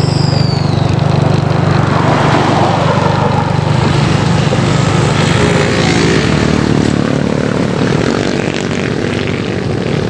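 Small vehicle engine running steadily at cruising speed, a continuous low drone with road and wind noise over it.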